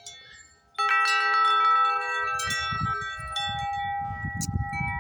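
Grace Note wind chime ringing in the wind: faint fading tones, then a sudden strike of the striker on the tubes about a second in sets several tones ringing together, with more strikes after. From about two seconds in, gusty wind rumbles on the microphone.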